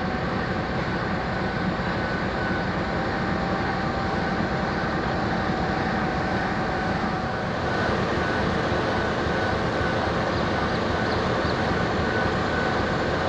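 GE GEU-20 diesel-electric locomotive's 7FDL-12 prime mover running steadily: a low rumble with a constant whine over it. About seven and a half seconds in, the sound grows a little louder and brighter.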